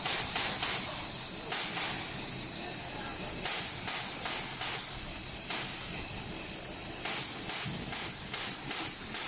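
HighTex 204-370 heavy-duty triple-feed (walking-foot) lockstitch machine stitching through multi-ply synthetic webbing: a quick regular clicking of needle strokes, about four a second, in runs that stop and start, over a steady hiss.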